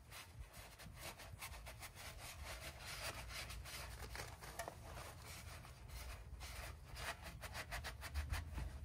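Quick, irregular scrubbing strokes rubbed over a surface, cleaning off grime loosened by oven cleaner, over a low steady hum.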